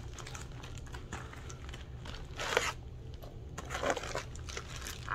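A package being torn open and its wrapping crinkled by hand: irregular rustling and crinkling, with the loudest tearing rustle about halfway through and another cluster of crinkles shortly after.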